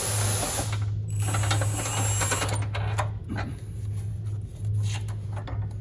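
Ratchet on a long extension running a front subframe bolt back in: a fast run of ratcheting for the first two and a half seconds, then scattered clicks, over a steady low hum.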